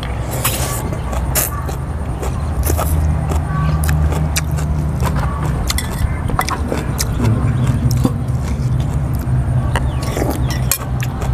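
Eating at a table: a slurp of noodles about half a second in, then repeated clinks of metal spoons and forks against a metal tray and glass bowl. A low steady hum, like a running engine, sits under it all.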